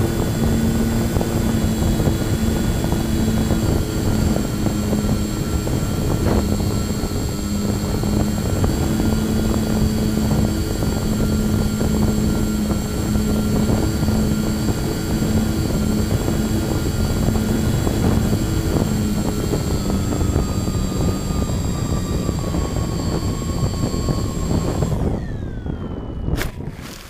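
Twin electric motors and propellers of an FT Bronco foam RC plane, heard from its onboard camera with rushing air noise: a steady whine through the flight that falls away as the throttle is cut near the end. A sharp knock follows as the plane touches down on grass, landing slightly hot in a breeze.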